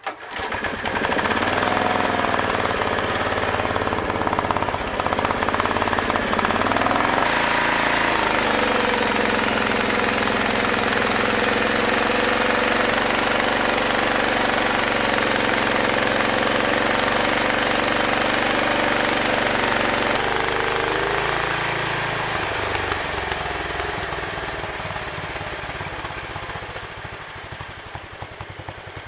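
A homemade band sawmill's engine starts up and runs steadily at speed, driving the band blade. About two-thirds of the way through its note changes and drops away, and it runs on more quietly to the end.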